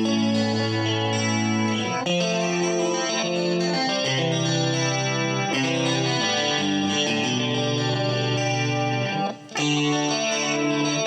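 Morgan Legend Series Strat-style electric guitar with an ash body, played through a clean tone with a chorus-like shimmer. It plays held chords that change about every one to two seconds, with a short break about nine seconds in.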